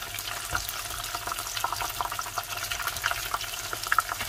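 Breaded saithe fish balls deep-frying in hot oil: steady sizzling with many small crackles and pops.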